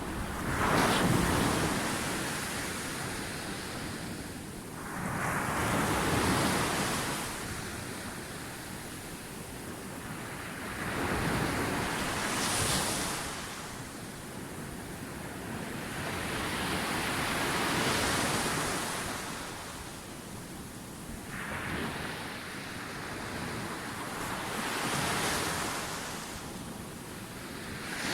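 Ocean waves breaking on a beach, each one swelling into a rushing hiss and fading, about every five to six seconds.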